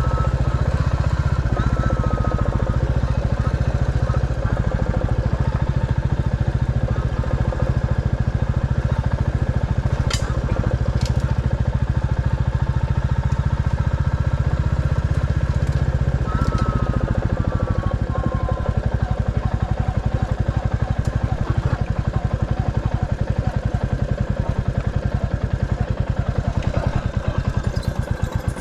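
Vehicle engine running steadily while being driven along a rough unsurfaced byway, with a few sharp clicks or knocks partway through.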